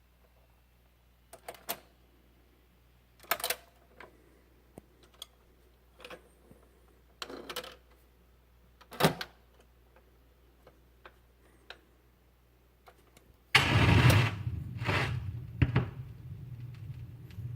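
Vintage Garrard turntable starting up: scattered mechanical clicks and knocks over a faint low hum, then, near the end, a loud thump as the stylus sets down on the record, followed by steady low rumble and groove noise from the lead-in before the recording starts.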